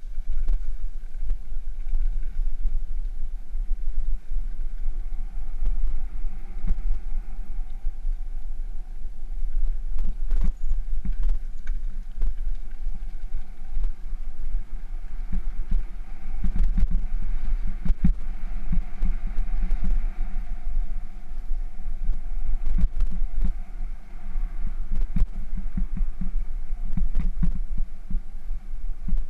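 Bicycle rolling over a rough gravel trail: a steady low rumble of wind and trail vibration, with frequent knocks and rattles from bumps in the path that come thicker in the second half.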